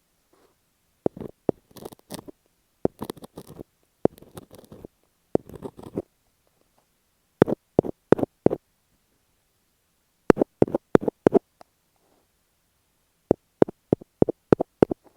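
Fingertips tapping and scratching on masking tape stuck over an earphone microphone, heard right up against the mic and muffled. In the first six seconds there are short bursts of scratchy rubbing, then groups of sharp taps, four or five at a time, with pauses between.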